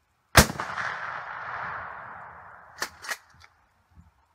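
A 12-gauge Remington 870 pump shotgun fires a single sabot slug: one loud sharp crack whose echo rolls on and fades over about two seconds. About two and a half seconds after the shot come two sharp clacks a quarter second apart, the pump action being worked back and forward.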